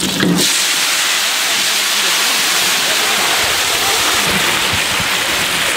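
Chopped onion, garlic and green chillies hitting hot oil in a large metal pan and frying with a loud, steady sizzle that starts about half a second in.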